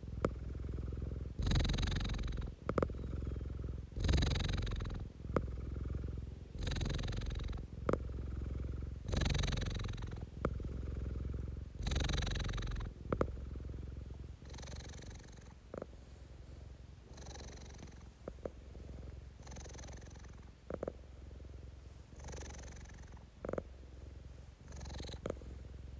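Domestic cat purring close up, a steady low rumble that swells with each breath about every two and a half seconds, the swells growing softer about halfway through. A few short clicks sound between them.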